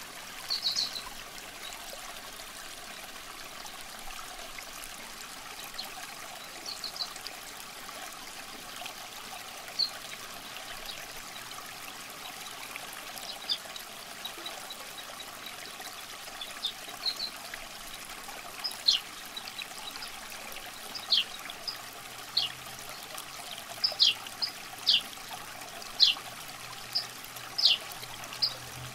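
Water trickling steadily, with short high chirps that fall in pitch, a few at first and then about one a second in the second half.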